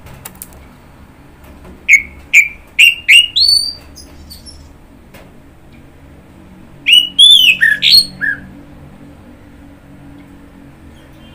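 Orange-headed thrush (anis merah) singing: two short phrases of loud whistled notes that glide in pitch, one about two seconds in and another about seven seconds in.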